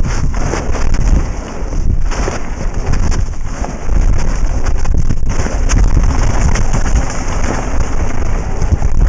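Mountain bike descending a dirt and gravel trail at speed: wind buffeting the helmet-camera microphone in a heavy rumble, with the rattle and knocks of tyres and bike over bumps and stones.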